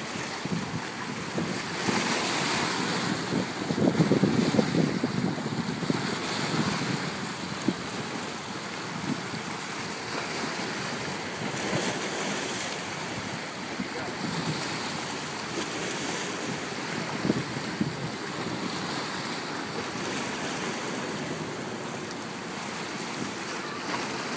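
Waves splashing and washing in from choppy open water, mixed with wind buffeting the microphone. The wash swells about two seconds in and stays louder for a few seconds before settling.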